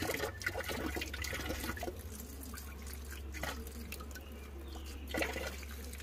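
Mountain spring water trickling and splashing over rocks, with small drips and clinks from a plastic ladle. About five seconds in, water poured out of the ladle splashes onto the stones.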